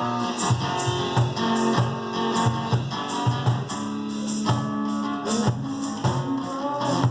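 Two-piece acoustic band playing a rock song live: guitar strummed and picked over a steady percussion beat, with no vocals.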